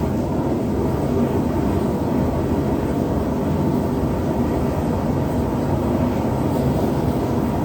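Gas forge burner running steadily at high heat, a continuous low roar, while a steel knife blade heats inside it.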